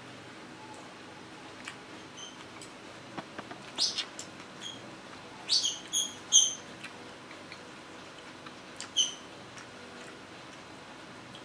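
Metal spoon and fork clinking and scraping against a plate while food is mixed. There are a few short ringing clinks, most of them between about five and a half and six and a half seconds in, and one more near nine seconds.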